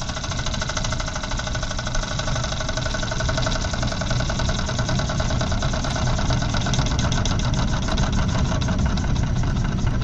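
Small model steam engine running fast, its piston exhausts making a rapid, even chuffing beat with a steady whir, growing louder over the first few seconds and then holding steady.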